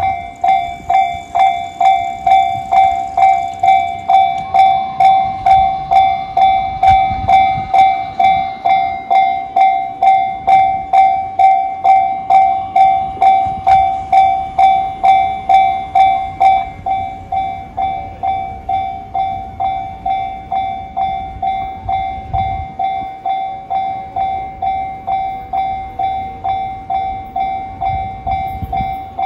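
Japanese railway level-crossing warning bell ringing steadily at about two dings a second. Each ding is a clear single-pitched electronic tone. About sixteen seconds in, the bell drops to a lower volume and keeps ringing.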